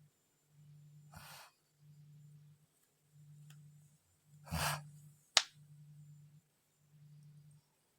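A sleeping woman breathing heavily and snoring: an airy breath about a second in, then a louder rough snore at about four and a half seconds, followed by a sharp click.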